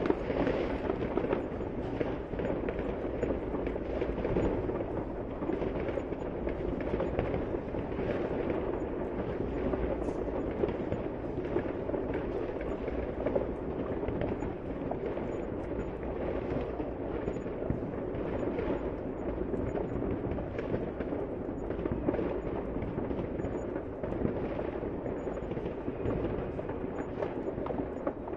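Many fireworks going off at once: a dense, unbroken stream of overlapping bangs and crackles, with no pauses.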